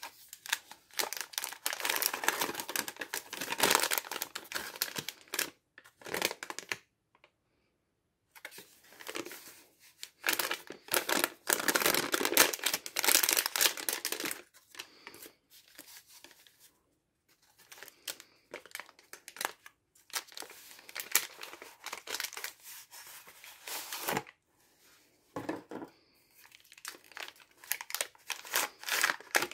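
MRE plastic and foil packaging crinkling and being torn open by hand, in irregular spells of rustling with short pauses.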